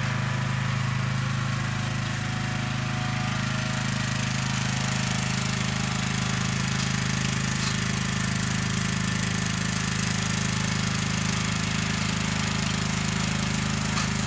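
Riding lawn mower's engine running steadily as the mower drives along, its pitch and level holding even throughout.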